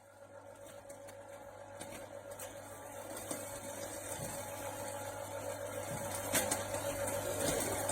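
Klarstein 300 W popcorn machine running with a steady mechanical hum that grows louder, with a few sharp clicks in the second half.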